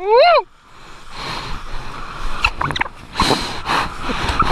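Kiteboard skimming over choppy water, with spray splashing and wind rushing across the action camera's microphone in uneven surges. A short high-pitched rising-and-falling call sounds at the very start.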